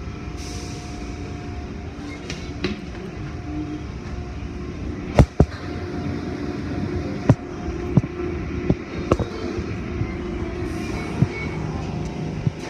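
Automatic car wash machinery running around the car, heard from inside the cabin: a steady rumble of motors and water spray, with sharp knocks as the brushes strike the car. The loudest knocks come as a quick pair about five seconds in, with more scattered after.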